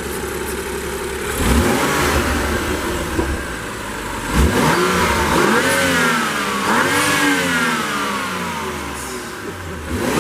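BMW M235i's turbocharged 3.0-litre straight-six, breathing through a freshly fitted Burger Motorsports aftermarket air intake, revved three times: each time the pitch climbs sharply and then slides back down.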